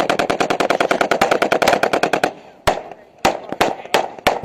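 Automatic gunfire: one long, rapid burst of about ten rounds a second that stops a little over two seconds in, followed by five single shots fired about half a second apart.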